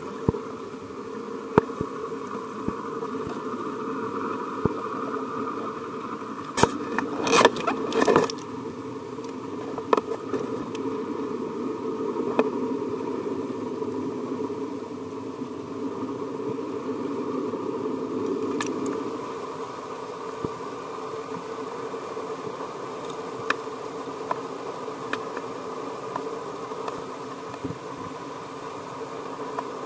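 Steady droning hum of a boat engine heard through the water, with a cluster of sharp knocks about seven to eight seconds in.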